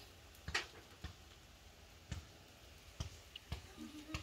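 A few light, irregular clicks and taps, about six in four seconds, the sharpest about half a second in.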